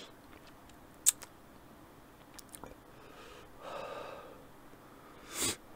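A man breathing heavily through his mouth, a sign of a lip and mouth burning from very hot sauce: one breath about half-way through and a louder, sharper gasp near the end. A sharp click about a second in.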